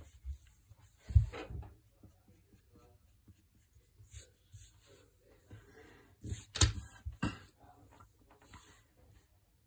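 Wooden pencil scratching on paper while drawing, with a hand brushing across the sheet. A few sharp knocks stand out, the loudest about a second in and again just before seven seconds.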